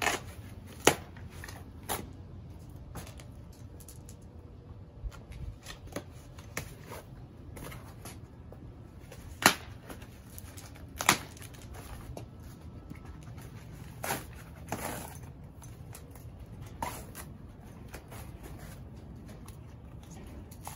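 Packing material being handled and cleared away from an unboxed folding e-bike: a dozen or so sharp snaps and clicks at irregular intervals, the loudest about a second in and around nine and eleven seconds in, over a low steady background hum.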